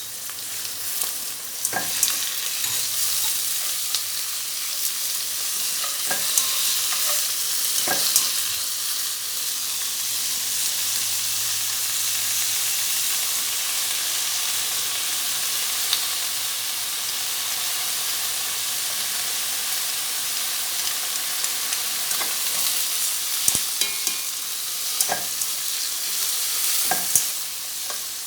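Shrimp sizzling in hot oil with sautéed onion and garlic, stirred in the pan with a spatula that knocks against it now and then.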